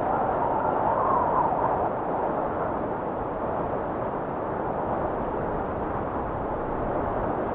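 Recorded wind blowing steadily as a soft rushing noise, with a faint whistle in the first couple of seconds.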